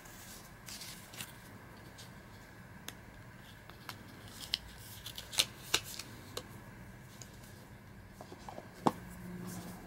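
Gloved hands handling the paper and cardboard packaging of an iPhone 12 box: soft rustling with scattered sharp clicks and taps. The three loudest taps come around the middle and near the end.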